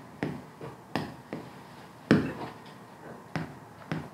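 Several sharp, irregular taps and clicks of a pen or chalk against a board as a calculation is written out. The loudest tap comes about two seconds in.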